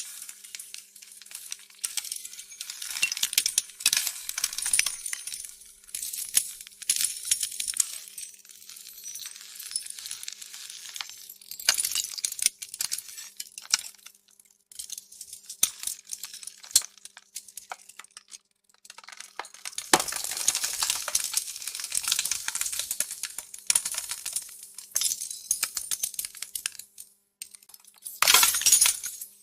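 Small pieces of building debris and rubble falling and clattering in repeated showers of sharp, bright clinks and cracks, with a louder, denser burst near the end.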